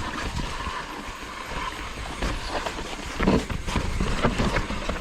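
Mountain bike riding over a dirt trail: wind rumbling on the camera's microphone, with tyre noise and frequent knocks and rattles from the bike, a cluster of harder knocks a little past the middle.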